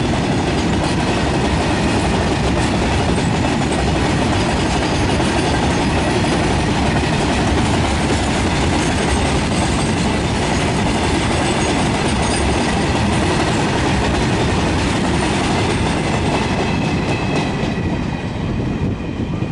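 Freight train wagons rolling past on the rails, a steady heavy rumble with wheel clatter and faint high squeals from the wheels. The noise starts to fall away near the end as the last wagons pass.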